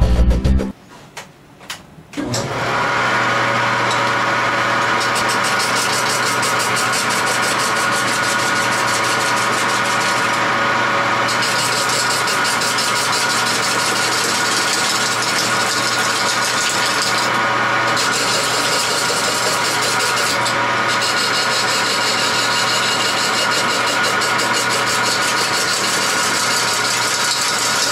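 Homemade wood lathe with a countershaft speed reduction running as a turning tool cuts a 13-inch rough log: a steady motor hum under a rapid, even ticking of the tool on the spinning wood, starting about two seconds in. The cutting noise drops out briefly a few times as the tool lifts off.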